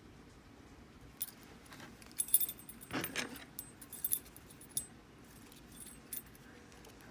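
Small padlock keys jingling and clinking together in scattered metallic clinks, the busiest burst a couple of seconds in.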